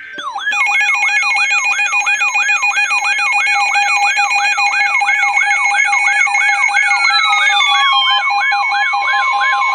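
Weather alert radio sounding its loud alert alarm for an incoming severe thunderstorm warning: a warbling tone repeating about three times a second over steady high tones. Near the end a second tone glides down and then holds steady.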